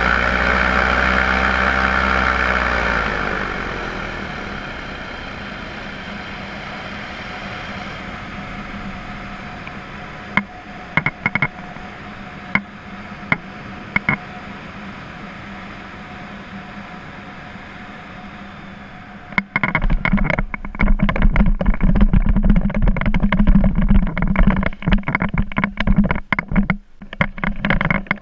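Paramotor engine and propeller heard from the flying pilot's camera: loud at first, then throttled back so the pitch falls about three seconds in. It runs on at a lower, steady hum with a few sharp clicks. From about two-thirds of the way through, a loud, irregular, choppy rumble takes over.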